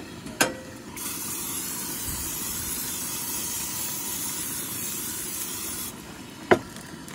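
Aerosol olive-oil cooking spray hissing steadily for about five seconds as it is sprayed into a frying pan, starting and stopping abruptly. A sharp knock follows near the end.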